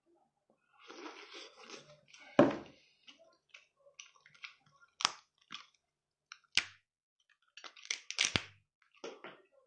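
Cooked lobster being bitten, chewed and its shell cracked and pulled apart by hand: irregular crunching and chewing with several sharp cracks, the loudest about two and a half seconds in.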